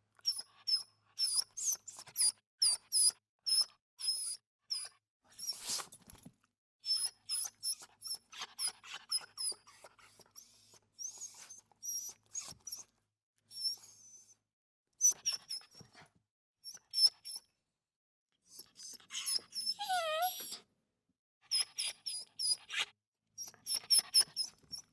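Puppy whimpering and crying: runs of short, very high-pitched squeaks, two or three a second, broken by short pauses. About twenty seconds in comes one longer, lower whine that falls in pitch.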